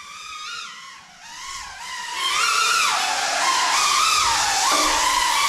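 Cinebot 30 FPV drone's brushless motors and ducted propellers whining, the pitch rising and falling with the throttle; louder from about two seconds in.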